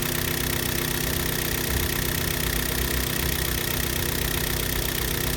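Hyundai-Kia G4KD 2.0-litre four-cylinder petrol engine idling steadily during warm-up.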